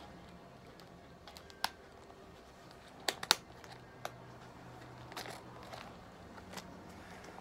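Handling noises from a cat's clear plastic cone collar: about seven short, sharp clicks and crinkles scattered over several seconds, the loudest a pair about three seconds in.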